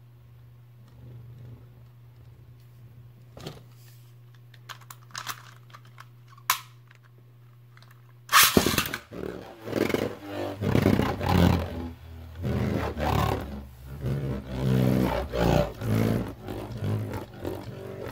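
A Beyblade Burst top spinning on a plastic stadium floor gives a faint, steady low hum with a few light clicks. About eight seconds in, a much louder rough sound starts suddenly and pulses roughly once a second, drowning out the top.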